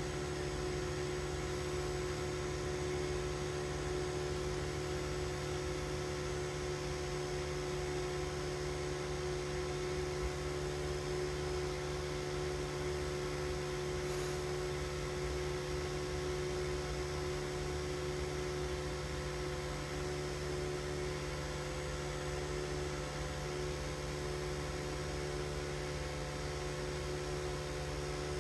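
A car idling while stopped, heard from inside its cabin: a steady low hum with a faint hiss underneath, unchanging throughout.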